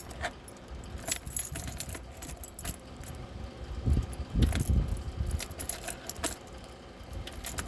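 Scattered metallic clicks and rattles from handling a battery charger's clamps on a lawnmower battery, with a low rumbling thump about four seconds in.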